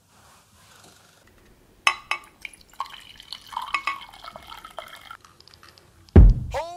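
Coffee poured from a glass carafe into a ceramic mug: a couple of glass clinks about two seconds in, then a trickling pour for about three seconds. Background music with a heavy beat starts loudly near the end.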